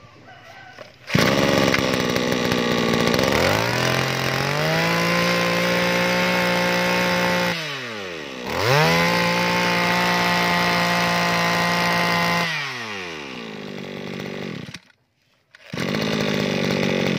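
Mitsubishi TB26 two-stroke brush cutter engine starting about a second in and revving up to a steady high speed. It drops briefly and revs high again, then falls back to a low idle. Near the end the sound stops for about a second and runs again.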